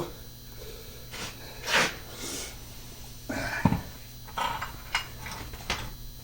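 Metal engine parts being handled during an engine teardown: a series of scattered clinks, scrapes and knocks, with one heavier thump a little past the halfway point.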